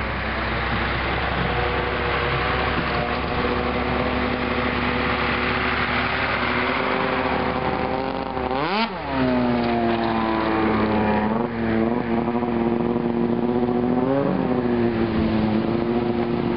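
An engine running steadily under a hiss, its pitch dropping sharply and climbing back about two-thirds of the way through, with smaller dips and rises after that.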